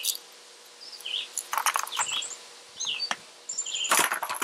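Small birds chirping in short, downward-sliding calls, with a brief high trill near the end. Two louder bursts of rattling and clatter, about a second and a half in and near the end, as items are handled in a plastic storage tote.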